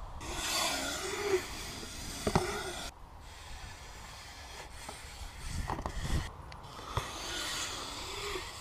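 BMX bike tyres rolling over a concrete skatepark, with wind noise on the action-camera microphone and a few sharp knocks from the bike.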